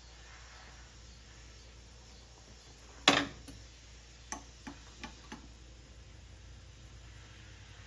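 One sharp knock about three seconds in, followed by four lighter clicks or taps over the next two seconds.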